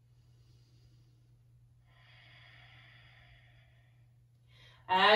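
A woman's slow, audible breathing while holding a plank: one long breath about two seconds in, lasting nearly two seconds, over a faint steady low hum. A short intake of breath near the end, just before she starts speaking.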